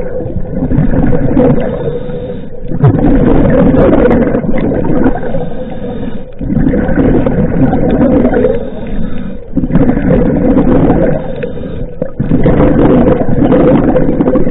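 Scuba diver breathing through a regulator underwater. Long noisy gushes of exhaled bubbles come about every three seconds, separated by short, quieter breaths in.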